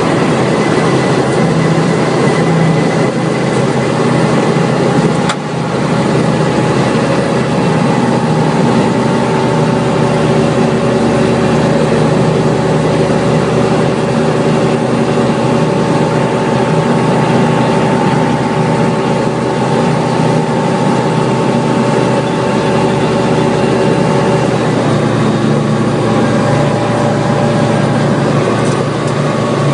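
Light aircraft engine and propeller running steadily, heard loud from inside the cockpit. A brief knock sounds about five seconds in, and the engine note shifts slightly near the end.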